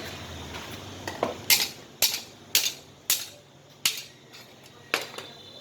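About seven sharp metal blows, roughly two a second, struck against a freshly welded sheet-steel piece to test the weld's strength.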